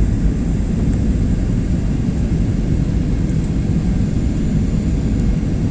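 Airplane noise during a landing: a steady low rumble with a faint steady whine above it.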